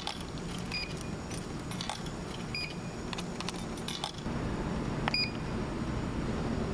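Three short electronic beeps, spaced a couple of seconds apart, among small clicks and clinks, over a steady low hum that grows a little louder about four seconds in.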